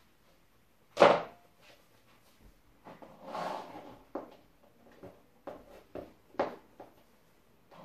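Black high-heeled shoes being handled and put on, with one sharp knock about a second in as a shoe is set down on a laminate floor. After it comes a brief rustle, then a string of hard clicks and taps from the heels on the floor.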